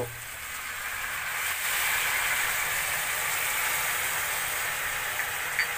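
Soy sauce hitting a hot stainless steel pan of pork belly, garlic and caramelized sugar, sizzling. The hiss swells about a second in and then holds steady.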